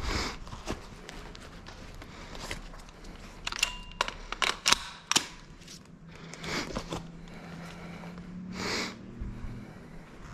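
Airsoft gameplay sounds: footsteps and gear knocking, with a quick run of about half a dozen sharp cracks of airsoft guns firing between about three and a half and five seconds in, and a short hiss near nine seconds.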